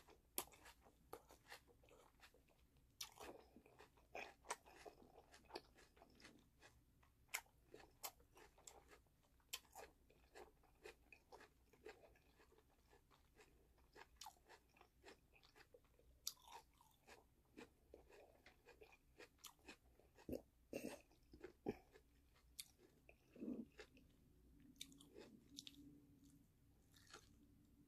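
Close-miked mouth chewing the last mouthful of jajangmyeon noodles: quiet, irregular wet clicks and smacks of the lips and tongue.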